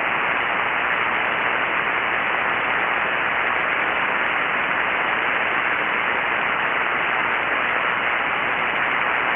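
Steady hiss of band noise from a ham radio receiver tuned to single sideband on 7.188 MHz in the 40-metre band: an open, empty frequency with no station answering.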